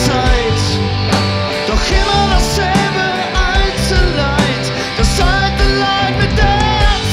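Rock band playing live: distorted electric guitars over bass guitar and a drum kit, with a high melody line that bends in pitch.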